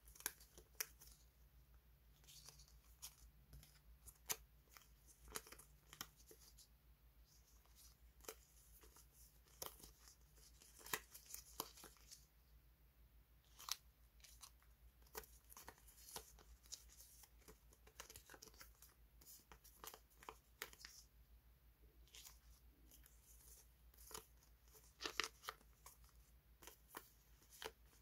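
A bundle of translucent die-cut flower stickers being flexed and fanned between the fingers: faint, scattered crisp crackles and rustles, with a few sharper snaps.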